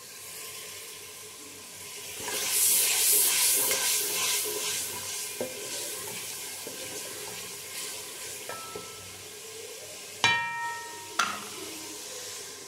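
Spiced masala sizzling in oil in a steel pot, growing louder about two seconds in as it is stirred. Near the end a metal spoon strikes the pot twice, the first clank ringing briefly.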